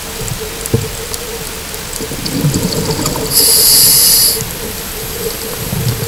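Scuba diver breathing through a regulator underwater: a hiss of inhaled air for about a second, a little past the middle, with low bubbling and gurgling of exhaled air before and after it, over a steady faint hum.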